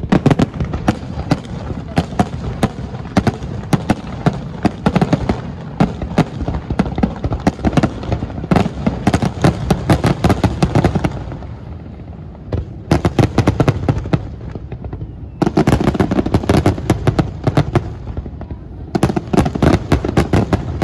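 Fireworks display: a rapid barrage of bangs. It thins out briefly a little past halfway, then comes back in dense volleys.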